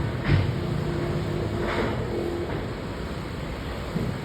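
A heavy engine running steadily on concrete-pouring machinery, with two short bursts of hiss, one at the start and one just under two seconds in.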